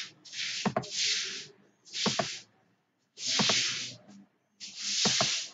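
Four short bursts of high hiss about a second apart, each with a pair of sharp clicks in it, with silence between.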